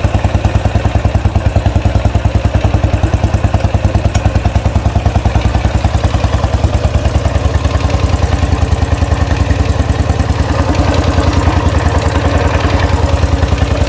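Royal Enfield Classic 500 single-cylinder engine idling with a steady, even beat on its first run after a rebuild, with a slight ticky noise.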